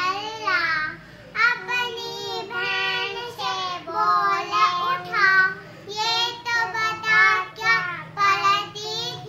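Two young girls singing together in a steady, chant-like melody, broken into short syllables.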